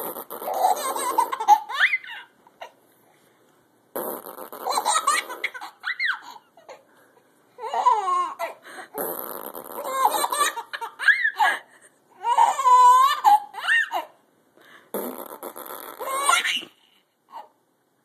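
A 4-month-old baby laughing in repeated bursts at a man's funny mouth noises, the two alternating about five times with short silences between.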